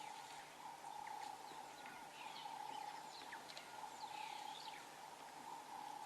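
Faint natural ambience: scattered short, falling bird chirps over a steady faint hum.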